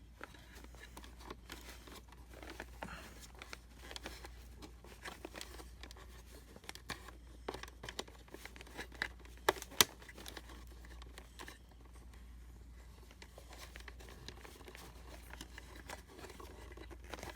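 Hands working on a vacuum cleaner's power cord and wires: scattered light rustles and small clicks of plastic and wire being handled, with two sharper clicks about halfway through.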